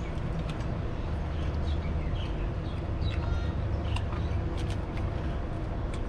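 Steady low rumble of road traffic going by, with small birds chirping briefly in the middle and a few light clicks.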